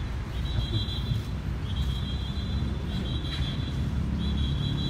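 Steady low rumble of street traffic, with a thin high tone that repeats about every second and a quarter, each one lasting most of a second.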